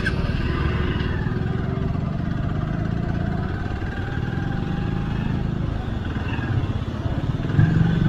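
Hero Xpulse 200's single-cylinder engine running steadily at low speed in a low gear as the motorcycle rides over a rough gravel track, picking up a little speed.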